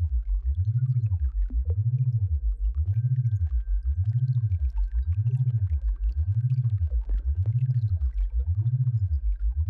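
Synthesized sound-therapy tone: a deep hum gliding up and down in pitch about once a second in an even, wavering pattern, with a faint steady high whine above it.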